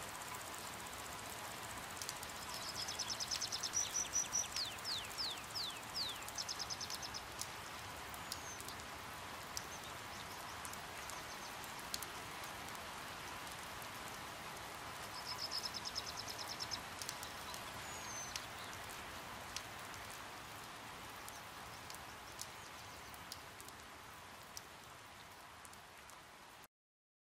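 Steady rain hiss with scattered drips and taps. Twice, a bird gives a high, rapid twittering series of notes, some sliding downward. The sound cuts off abruptly near the end.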